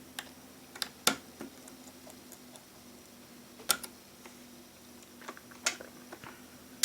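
Sparse light clicks and taps of a small screwdriver, tiny screws and phone parts handled during an iPhone 6 Plus teardown, a second or more apart. A faint steady hum runs beneath.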